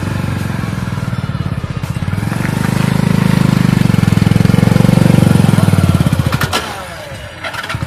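Motorcycle engine running while the bike is ridden, its pulsing growing louder through the middle and easing off near the end.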